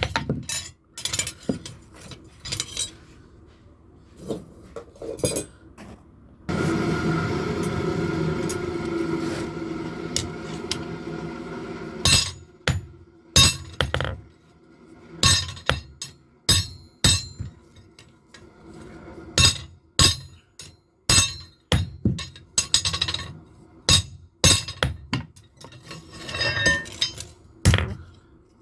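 Blacksmith's hammer striking metal on an anvil in irregular single blows, each with a short metallic ring. In the middle comes a steady, noisy mechanical sound lasting about five seconds, which then stops abruptly.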